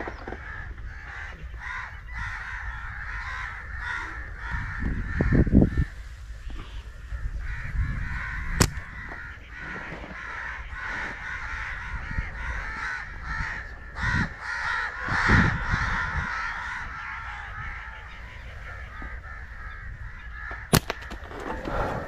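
A crowd of birds calling continuously, with crows cawing among them. Low rumbles swell on the microphone around five and fifteen seconds in, and two sharp clicks come, one in the middle and one near the end.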